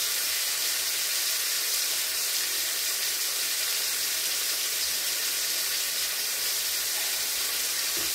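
Boneless meat frying in two pans on a stovetop, giving a steady high sizzle with no break.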